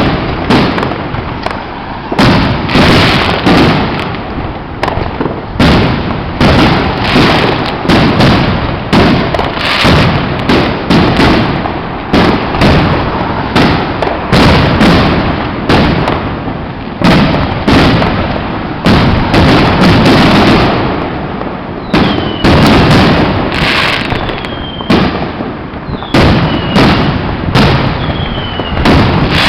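Consumer fireworks going off one after another in a dense barrage of loud bangs and crackling reports. Four short, falling whistles sound among the bangs in the last quarter.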